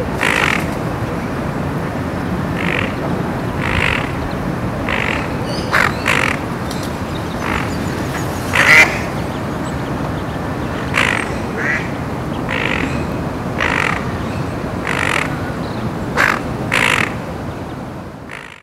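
A mother duck quacking in short, repeated calls, roughly one a second, over steady background noise: the calls of a hen duck distraught as a grey heron swallows one of her ducklings.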